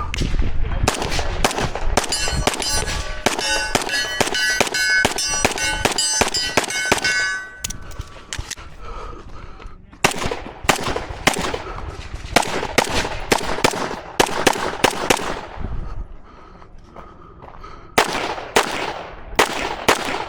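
Strings of rapid gunshots on a two-gun match stage, with steel targets ringing with a metallic clang as they are hit during the first string. The shooting breaks off for a couple of seconds twice, at about a third and again at about three quarters of the way through, then picks up again.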